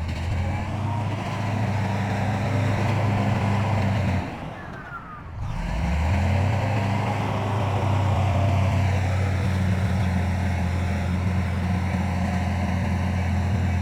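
Heavy diesel earthmoving machinery running steadily under load, its engine a continuous low hum with a rumble of working noise over it. The sound drops away for about a second and a half some four seconds in, then comes back at full strength.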